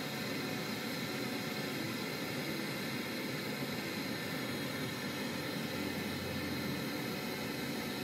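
Gas brazing torch burning with a steady hissing flame while a copper refrigerant pipe joint on a refrigerator is brazed.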